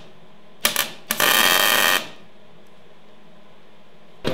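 MIG welder arc on steel: a short burst about half a second in, then about a second of steady crackling hiss, the sound of tack welds being laid. A sharp click right at the end.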